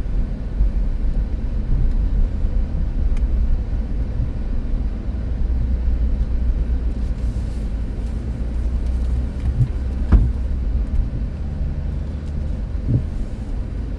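Minivan interior rumble as the van is driven through deep snow, with one sharp thump about ten seconds in as its back bumper hits a snowbank, and a lighter knock near the end.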